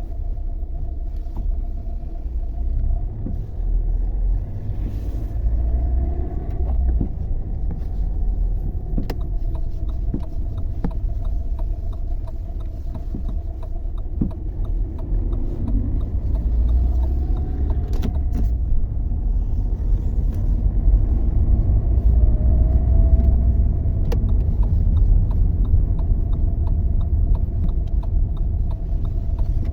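Lada Vesta driving, heard from inside the cabin: a steady low road rumble with sharp, irregular knocks from the front suspension. The knocks come from worn front anti-roll bar (stabilizer) links whose ball joints had play.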